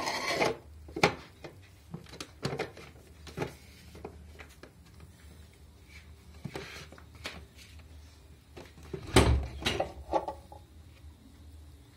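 Plastic parts of an electric juicer being handled and fitted together: a series of scattered clicks and knocks, the loudest, with a low thump, about nine seconds in. The juicer's motor is not running.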